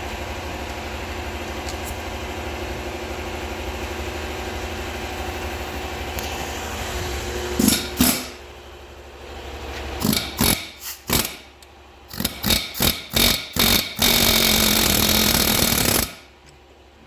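A die grinder cutting a slot into the stuck hardened-steel bearing race of a John Deere 830 clutch. It grinds steadily for several seconds, then in a string of short bursts as it is switched on and off. A final run of about two seconds cuts off suddenly.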